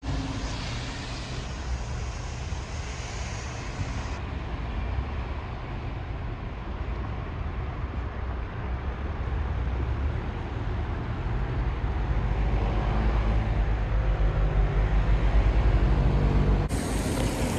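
Road traffic on wet roads: cars and buses passing, with a heavy low rumble that grows louder towards the end.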